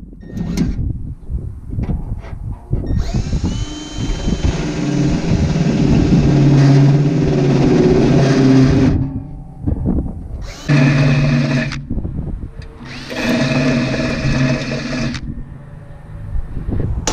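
Power drill boring a pilot hole in metal: one long run of about six seconds, then two shorter bursts. Scattered knocks and clatter come before the first run.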